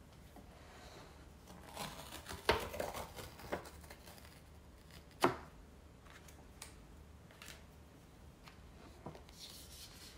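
A large cup ramen being handled and its lid pulled off: rustling and light clicks of the container, with one sharp snap about five seconds in and a few faint taps near the end.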